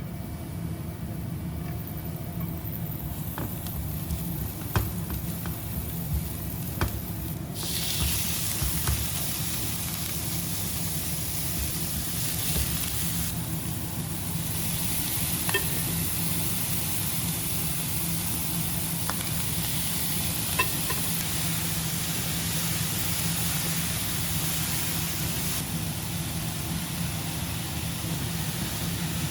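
Food frying in a hot pan: after a few light clicks, a loud sizzle starts suddenly about seven seconds in and runs on steadily, with occasional small clicks from stirring.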